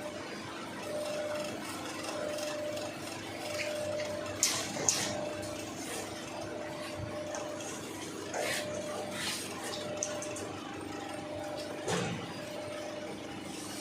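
CNC press brake running with a steady hum and a higher tone that comes and goes, with a few sharp clicks: two close together about four and a half seconds in and one near twelve seconds.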